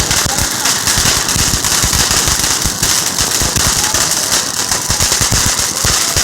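Consumer firework going off in a dense, continuous rapid-fire crackle of sharp pops over a steady hiss.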